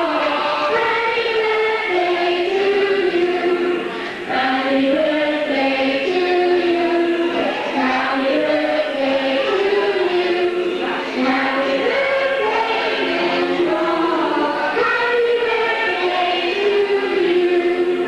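A choir singing, the melody moving through held notes, with a brief dip in loudness about four seconds in.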